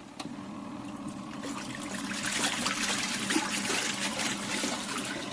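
Water splashing and pouring in the tub of a HODEKT mini single-tub washing machine. It grows louder about a second and a half in, over a steady low hum.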